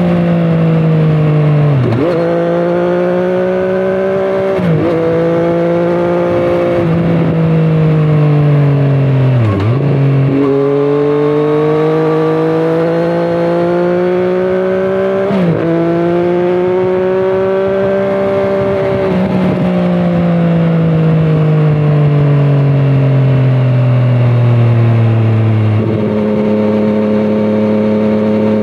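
A Triumph Street Triple 765RS's inline three-cylinder engine running through a Scorpion Serket aftermarket exhaust while riding, its note rising and falling with the throttle. The pitch drops sharply several times as it changes gear, falls slowly for several seconds past the two-thirds mark as it slows, then steps up near the end and holds steady.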